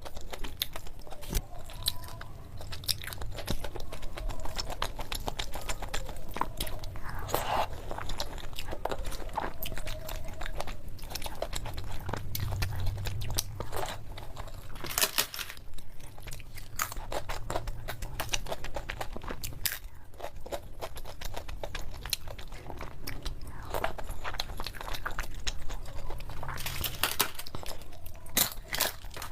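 Close-miked chewing and mouth sounds of a person eating, with many small, sharp clicks throughout.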